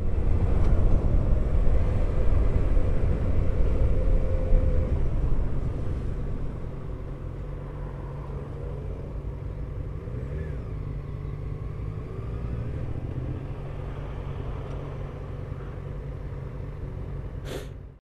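Motorcycle riding in traffic, heard from an on-board camera: the engine runs under a heavy low rumble of wind and road noise, louder for the first five seconds, then lower and steady. A brief rise and fall in pitch comes about ten seconds in, and a sharp click near the end.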